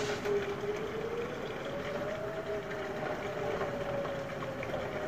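Outdoor tornado warning sirens wailing, a low tone that slowly rises and falls, with two tones at slightly different pitches overlapping.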